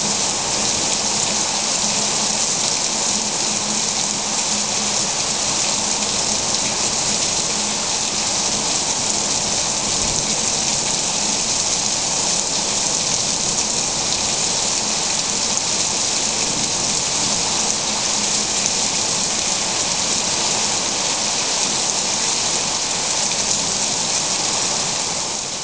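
Steady heavy rain falling, a constant hiss with no let-up, fading out right at the end.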